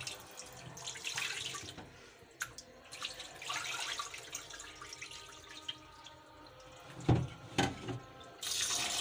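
Hand swishing and squeezing pieces of raw tripe in water in a stainless steel bowl, with small splashes and drips. There are two louder splashes about seven seconds in, and running tap water starts near the end.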